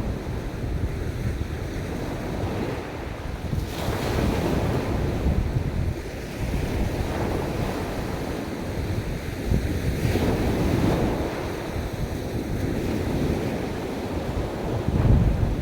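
Ocean waves breaking and washing on a beach, surging a few times, with wind rumbling on the microphone.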